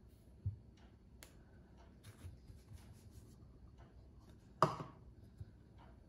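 Silicone spatula folding thick cake batter and almond meal in a glass bowl: soft scraping and squelching with a few light taps, a low thump about half a second in, and one sharper knock about three-quarters of the way through.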